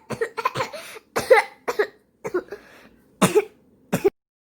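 A child coughing: a series of about six short coughs, ending shortly before the close.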